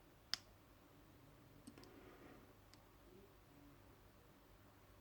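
Faint metallic clicks of a lock pick and tension wrench working the pins of a Draper five-pin padlock. One sharp click comes just after the start, then a few fainter ticks, with near silence between them.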